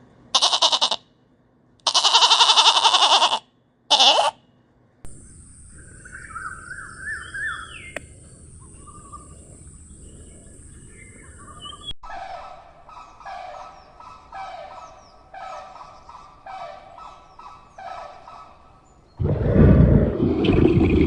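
A string of different animal calls, one recording after another: three loud calls in the first four seconds, then birdsong over a steady high hiss, then a run of short calls repeated about once a second, and a loud deep call starting near the end.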